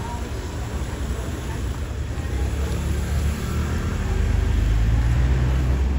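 Low engine rumble of a motor vehicle passing close by on the street, growing louder about halfway through.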